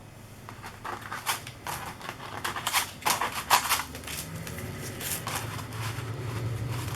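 Plastic stencil sheets being handled and shuffled: a quick run of crinkling clicks and rustles, easing off after about four seconds into a faint low hum.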